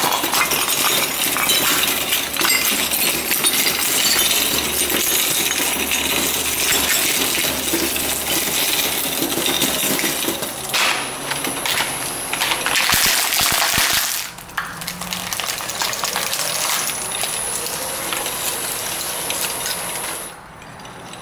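Industrial twin-shaft shredder crushing a glazed ceramic figurine: dense cracking and clinking of ceramic shards against the steel cutter discs. After about fourteen seconds the crunching stops and the shredder keeps running more quietly.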